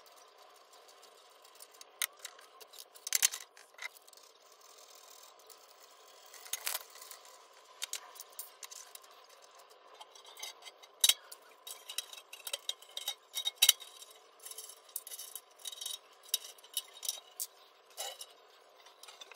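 Irregular light clicks, taps and knocks of a steel cabinet frame and its castor wheels being handled, turned over and fitted with a top panel, with a few sharper knocks a little past the middle.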